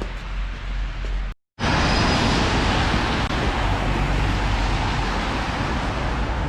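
Loud, steady rush and rumble of passing vehicle traffic, starting abruptly after a short break about a second and a half in.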